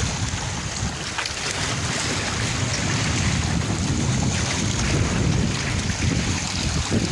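Wind buffeting the microphone over a choppy sea, with the rush and slosh of waves.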